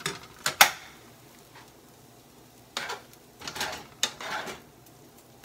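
Metal spoon clinking and scraping against frying pans: a few sharp clinks in the first second, then a string of short scraping strokes a few seconds in.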